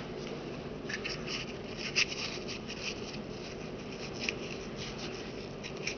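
Hands rubbing and fiddling with a small object between the fingers: soft scratchy rustling with a few light clicks, over a steady background hiss.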